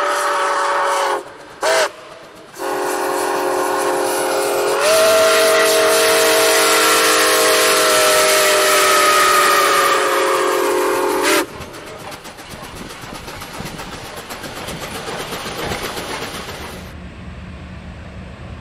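Steam locomotive's chime whistle sounding a chord of several notes: a short blast, a brief toot, then a long blast of about nine seconds that jumps up in pitch and then slowly sags. It cuts off about eleven seconds in, leaving the quieter, steady rumble of the train rolling past.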